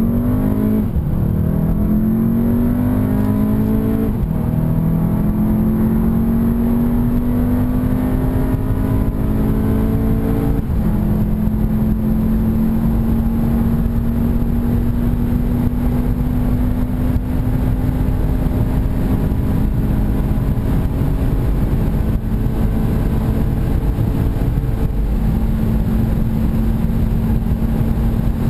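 Turbocharged 2.0-litre four-cylinder engine of a VW Beetle 2.0 TSI under full-throttle acceleration, heard from inside the cabin. Its pitch rises through each gear and drops at quick DSG dual-clutch upshifts about a second in, about four seconds in, about ten seconds in and about 25 seconds in. Each rise is longer and slower in the higher gears.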